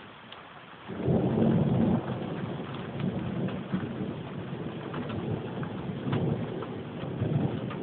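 Thunder breaking suddenly about a second in, loudest at first, then rumbling on low with several swells, over steady rain.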